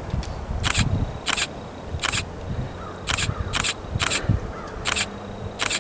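Low rumble of an approaching BNSF coal train led by EMD SD70ACe diesel locomotives, overlaid by a series of short, sharp clicks, about eight of them at uneven gaps of half a second to a second.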